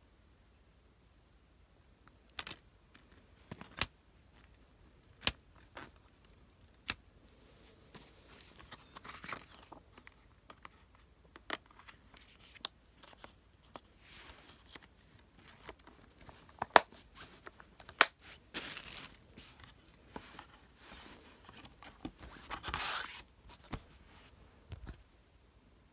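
Plastic multi-disc DVD case being handled: a series of sharp clicks and snaps from the hinged disc trays and case, mixed with several sliding, scraping rustles of plastic and cardboard, the longest and loudest a little before the end.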